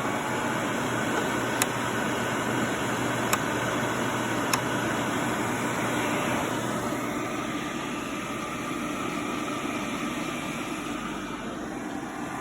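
Vintage Oster Professional portable bonnet hair dryer running: its blower motor whirring steadily with a rush of air, just switched on and warming up. A few faint ticks sound in the first few seconds.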